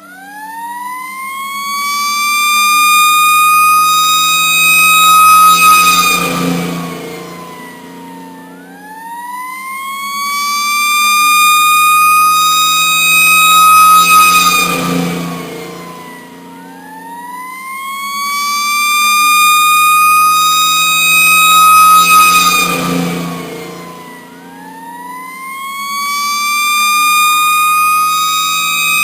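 Emergency vehicle siren sounding a slow wail: the pitch climbs over about two seconds, holds high, then slides down, repeating about every eight seconds. A vehicle engine runs steadily underneath. The siren is loud, swelling and fading in level with each cycle.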